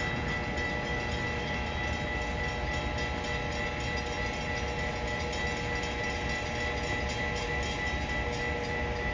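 Passenger train rolling past: a steady whine of several held tones over rail and wheel noise, with faint regular clicking.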